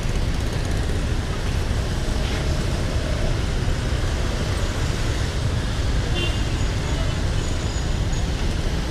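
Steady city road traffic: a continuous rumble of passing vehicle engines and tyres.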